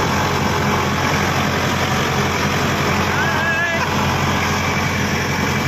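A vehicle's engine running steadily under dense road and wind noise, heard from inside the open-sided vehicle while it is moving.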